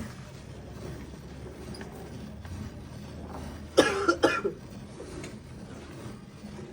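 A short bout of coughing about four seconds in, two or three quick coughs, over a low steady background noise.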